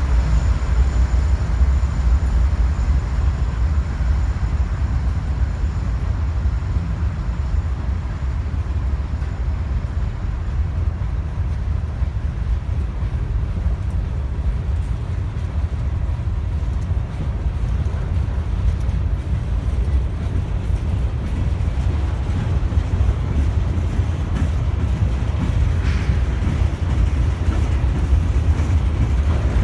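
A train rolling past on the track, a steady low rumble.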